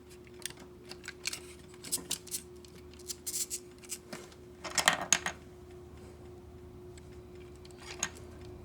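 Small plastic clicks and scrapes of Zoids Gun Sniper model-kit parts being handled and caps pressed into place, in scattered bursts with the loudest cluster about five seconds in. A faint steady hum runs underneath.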